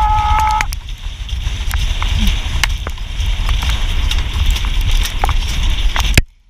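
Wind rushing over the microphone of an onboard camera on a galloping chuckwagon, a heavy rumble with scattered clicks and knocks from the rig. A long held high yell ends about half a second in, and the sound cuts off suddenly near the end.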